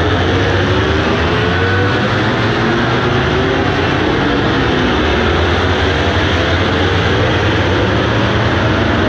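MotoGP racing motorcycles passing one after another at speed, a loud continuous blare of engines with pitches sliding up and down as the bikes go by and change gear.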